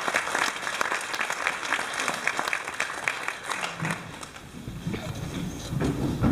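Audience applauding with dense, rapid clapping that dies away about three and a half seconds in, leaving a low rumble near the end.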